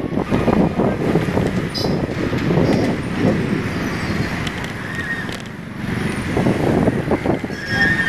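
Night city street traffic heard on the move, with wind buffeting the microphone in an uneven rumble. Brief high-pitched beeps come about five seconds in and again near the end.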